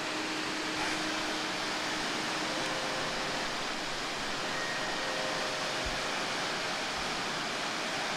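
A waterfall's steady rush of falling water.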